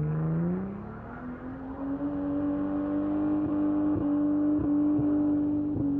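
Holden VY Commodore V6 engine revving up and held at high revs during a burnout, with tyres spinning. The engine note climbs over the first second or so, then holds steady with a few brief dips.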